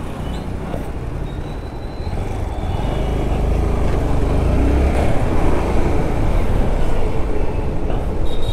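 Motorcycle engine running with road and traffic noise, heard from the rider's seat; the low rumble grows louder about two and a half seconds in.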